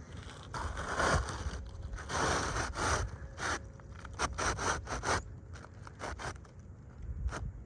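Scraping and rubbing on roof shingles: a few longer scrapes, then a run of short quick strokes.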